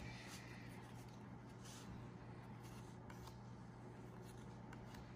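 Faint, soft swishes of Magic: The Gathering trading cards being slid one at a time from the front of a hand-held stack to the back, several about a second apart, over a steady low hum.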